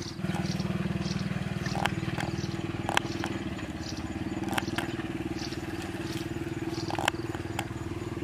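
A small engine running steadily, its drone getting louder just after the start, with a few sharp cracks scattered through.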